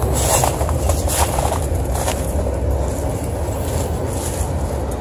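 Freight train rolling past: a steady low rumble of wheels on rail, with scattered short high clicks and hisses over it.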